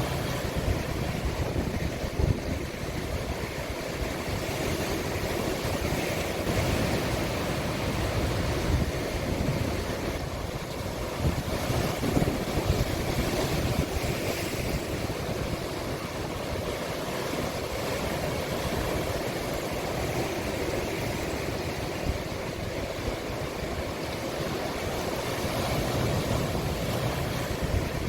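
Sea waves breaking and washing on a cove shore: a steady rush of surf, with an irregular low rumble of wind on the microphone.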